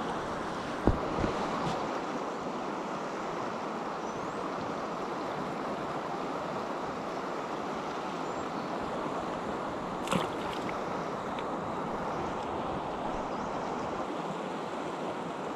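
Steady rush of river water flowing. Brief sharp knocks or clicks come twice about a second in and once about ten seconds in.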